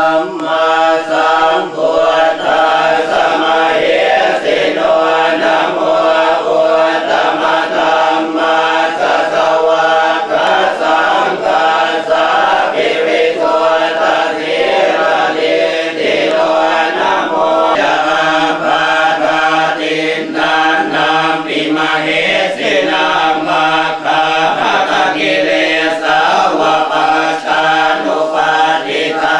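Thai Buddhist monks chanting together in unison, a continuous droning recitation with no breaks.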